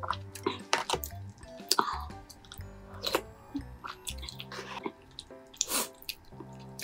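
Close-miked eating sounds: a person chewing mouthfuls of malatang, with wet mouth noises and many short sharp clicks, over soft background music.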